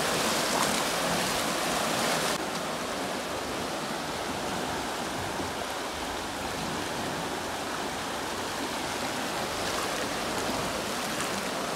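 Canal water surging out of the Bhadra tunnel outlet and churning in a stone basin: a steady, heavy rush of turbulent water. About two seconds in it turns a little quieter and duller, then holds steady.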